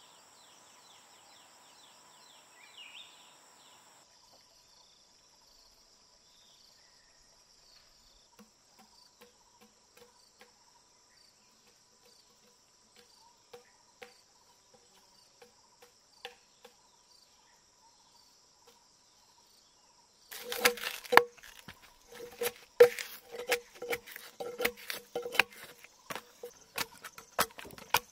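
Insects drone steadily, with a brief bird chirp near the start and a few faint scattered taps. About twenty seconds in, a machete starts chopping into a log: loud, quick wooden strikes, about two to three a second.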